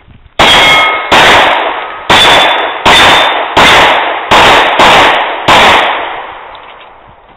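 Eight pistol shots fired at steel plates over about five seconds at uneven intervals, each shot loud with a long echoing tail. Several are followed by the ring of a struck steel plate.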